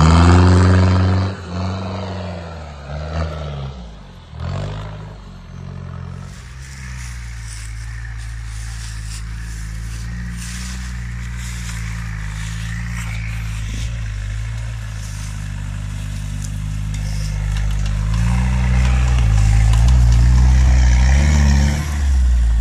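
Toyota Land Cruiser LJ70's 2.4 diesel engine revving hard and then easing off, followed by a Jeep Cherokee XJ's 2.1 turbodiesel engine running at low speed, its revs rising and falling repeatedly near the end as it crawls over the rough ground.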